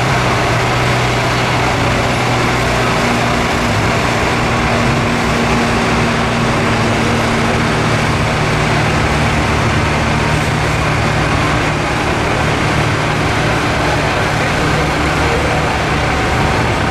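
Steady engine drone of the truck hauling a large parade float as it rolls slowly past, over a constant noisy hiss of street sound.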